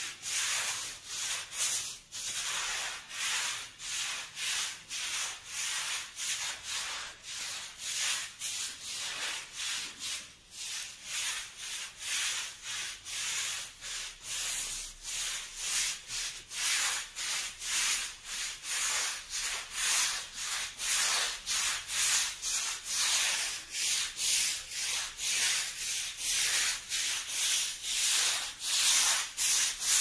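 Stiff-bristled push broom scrubbing soapy, wet concrete paving stones with quick back-and-forth strokes, about two scratchy strokes a second.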